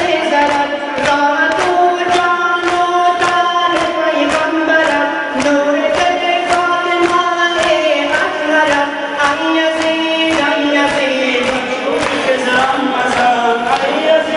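A noha, a Shia mourning lament, sung over rhythmic chest-beating (sineh-zani) by a crowd of mourners. The melody moves in long held notes, and the hand strikes on chests land in a steady beat of about two a second.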